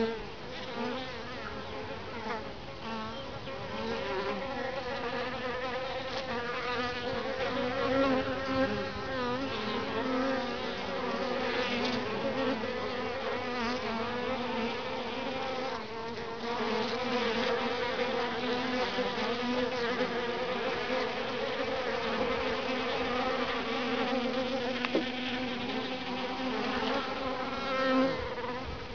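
Honey bees buzzing close by: a steady wingbeat hum with a slightly wavering pitch, swelling briefly now and then as bees move near.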